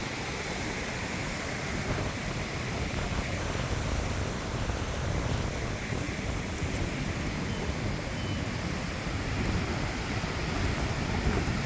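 Ocean surf washing steadily on the shore, with wind rumbling on the microphone.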